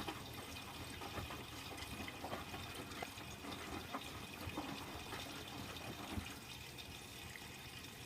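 Water running and sloshing inside a Miele W Classic WDA110 washing machine's drum during its wash cycle, with small scattered clicks; it gets a little quieter about six seconds in.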